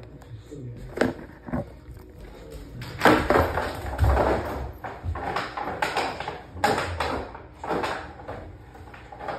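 A plastic jug on a rope is dragged and knocked about on a hardwood floor by a dog. There are two sharp knocks about a second in, then from about three seconds in a loud, irregular run of knocking, rattling and scraping.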